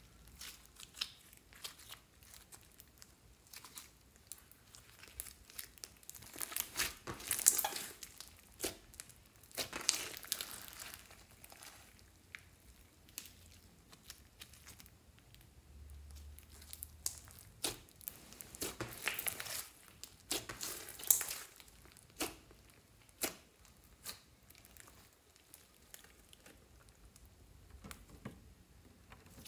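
Clear slime mixed with glitter and floam beads, stretched and pulled apart by hand, giving irregular sticky crackles and small pops. The crackling comes in denser bursts several times, with quieter stretches between.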